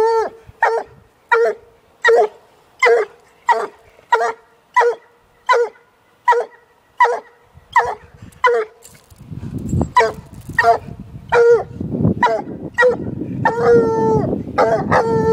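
A one-year-old Treeing Walker coonhound barking at a caged raccoon: short, pitched barks repeating steadily about three every two seconds. Past the middle a low rumbling noise comes in under the barks.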